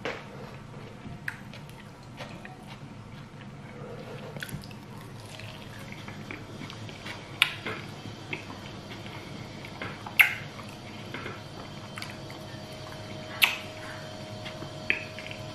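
Eating by hand: wet chewing and soft squishing of fried sweet potato and scrambled egg, broken by a few sharp clicks, the loudest about seven, ten and thirteen seconds in.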